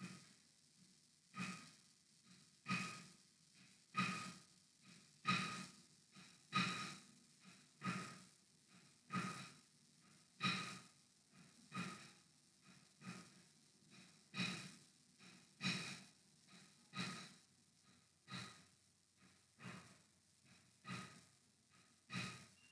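Soft, even breathing close to the microphone, a puff about every 1.3 seconds.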